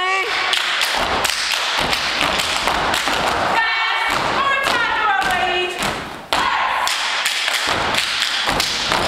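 Step team stepping: feet stomping on the stage floor and hands clapping and slapping in quick rhythmic patterns, with a few shouts in the middle.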